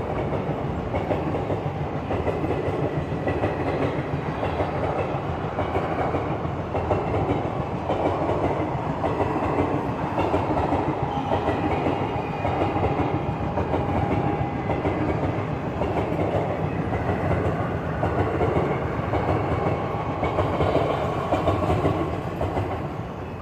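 Indian Railways passenger coaches rolling past, their wheels clattering steadily over the rail joints.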